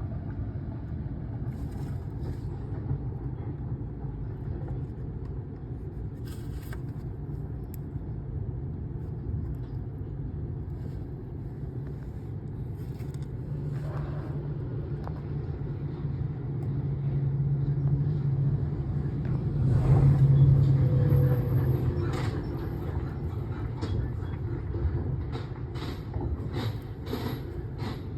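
Vauxhall Vivaro van engine running with its injector misfire fixed, a steady low hum that swells louder about two-thirds of the way through and then settles back.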